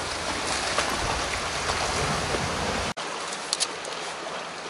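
Sea water washing against shoreline rocks: a steady rushing wash. About three seconds in it cuts abruptly to a quieter, steady outdoor hiss with a couple of faint short clicks.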